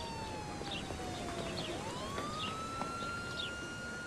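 Emergency-vehicle siren wailing: its pitch slides slowly down, then about halfway through swings back up and holds high. Short high chirps repeat about once a second over a steady low background hum.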